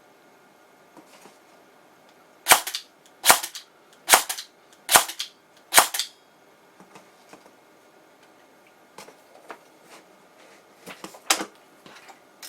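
Airsoft electric gun (AEG) fired on semi-auto: five sharp shots, each a crack of the piston and gearbox cycling with a short whir after it, fired evenly at a little under one per second. Fainter clicks follow, with one sharper crack near the end.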